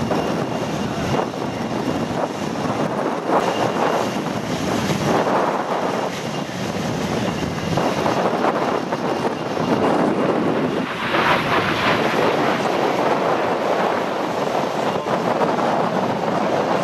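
CAC Sabre jet fighter's Rolls-Royce Avon turbojet heard from the ground as a continuous rushing roar, swelling a little about eleven seconds in, with wind on the microphone mixed in.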